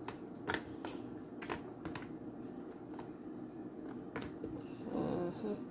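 Oyster mushrooms being tossed and pressed in a bowl of wet marinade: soft squishing with a few scattered light clicks against the bowl, over a low steady room hum.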